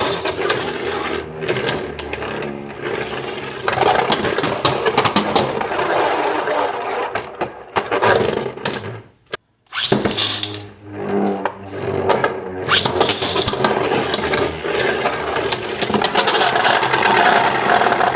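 Two 3D-printed Beyblade Burst tops spinning and clashing in a stadium: a dense whirring grind with rapid clacking hits, breaking off for a moment about nine seconds in.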